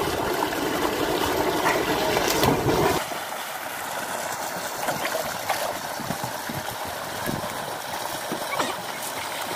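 Swimming-pool water: a pipe outlet gushing into the pool and swimmers splashing. A deeper rumble underneath stops suddenly about three seconds in, leaving a lighter rushing hiss with scattered small splashes.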